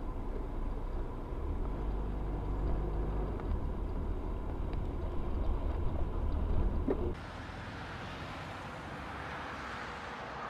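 Steady deep rumble of a car's engine and tyres heard from inside the cabin at highway speed on a wet road. About seven seconds in it cuts off abruptly to a quieter, hissier background of a car barely moving in city traffic.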